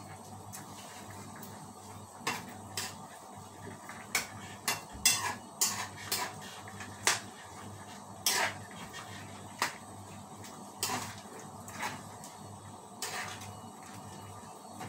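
A metal spoon clinking and scraping against a frying pan while stirring a liquid soup, in a dozen or so irregular knocks, starting about two seconds in.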